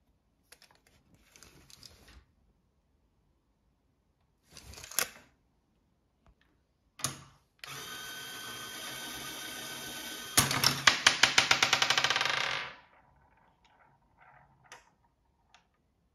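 Lego Technic shooting mechanism: its electric motor runs the gear train with a steady whir for about three seconds, then a loud, fast ticking rattle for about two seconds before it stops. A few small plastic clicks and a short knock come first.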